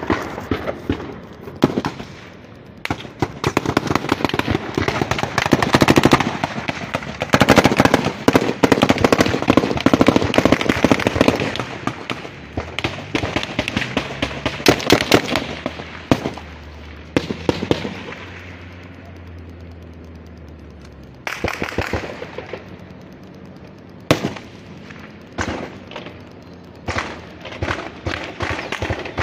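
Gunfire in a street shootout: long rapid runs of shots like automatic fire, densest in the first half, easing around the middle, then more short bursts near the end.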